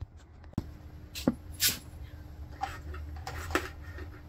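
Scattered light knocks and clicks of handling, with a faint steady hum underneath.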